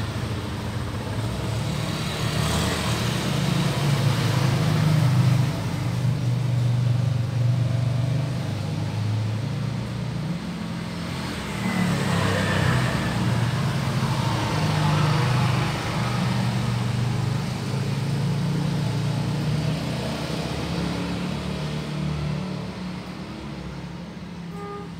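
Motor vehicle engine running close by, a steady low rumble that grows louder a few seconds in and again around the middle, as with passing road traffic.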